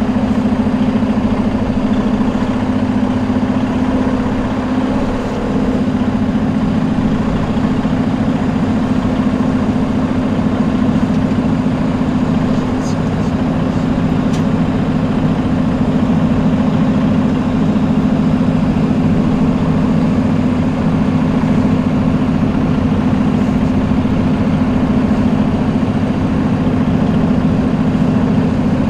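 Freightliner Cascadia semi truck's diesel engine running steadily, an even hum that holds the same pitch throughout.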